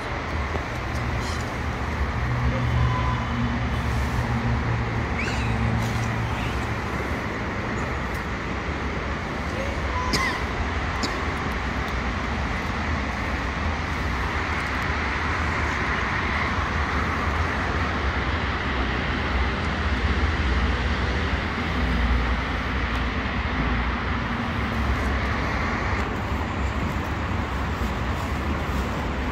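Steady road-traffic noise of a city street: a continuous low rumble and hiss, with a few brief high tones near the start and about ten seconds in.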